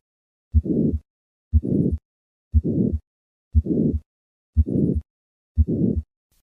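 Heart sounds of hypertrophic cardiomyopathy at about one beat a second. Each beat has a low first heart sound, then a harsh systolic murmur filling the gap up to the second heart sound.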